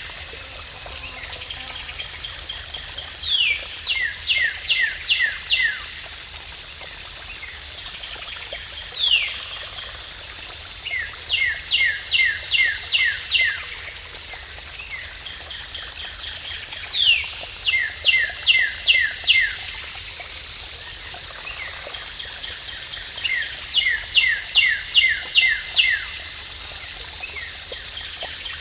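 Steady rush of falling water with a bird singing over it. The bird repeats one phrase: a quick falling whistle, then a run of about six short, evenly spaced notes. The phrase comes four times, every five to six seconds, and the falling whistle is also heard once on its own.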